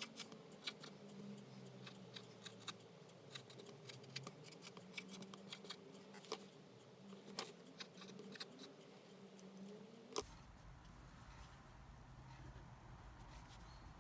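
Faint, irregular light clicks and ticks, several a second, from small objects being handled close to the microphone; about ten seconds in they stop at a cut, leaving a faint steady low hum.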